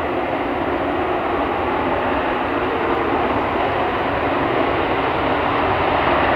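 An F-35A Lightning II's single Pratt & Whitney F135 afterburning turbofan at takeoff power during the takeoff roll: a steady jet rush that grows slowly louder as the aircraft comes down the runway toward the microphone.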